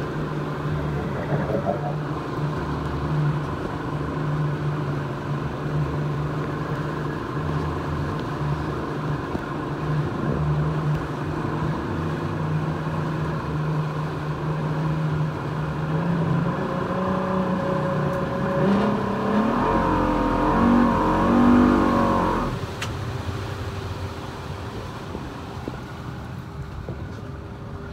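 Speedboat's Yamaha V250 outboard running hard, with rushing water from the wake. Its pitch climbs about two-thirds of the way through and wavers through the loudest stretch. Then the sound drops suddenly as the engine is throttled back.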